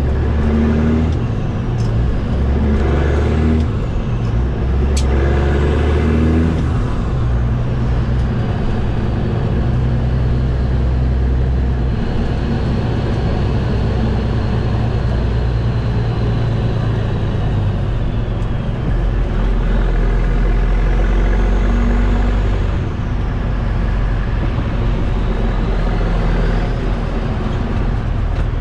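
Caterpillar C15 diesel engine of a Kenworth T800 semi, heard from inside the cab, running under load while pulling through its gears; the engine note steps at several shifts. A faint high whine rises and falls over it in the second half.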